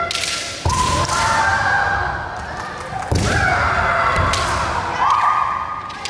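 Kendo kiai: three long held yells from the fencers, each starting with sharp cracks and thumps of bamboo shinai strikes and stamping feet on a wooden floor, about half a second, three seconds and five seconds in.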